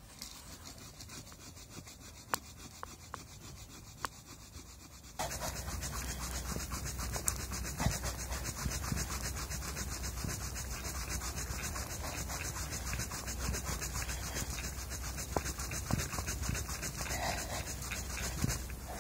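Leg-driven wooden fire plow: a stick rubbing rapidly back and forth along the groove of a dry wooden board, a steady scraping rub that gets much louder about five seconds in.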